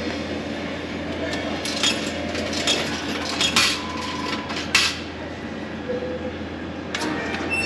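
Coins clinking as they are fed into a retro toast-sandwich vending machine's coin slot, a string of sharp metallic clinks with a brief tone about four seconds in, over a steady electrical hum.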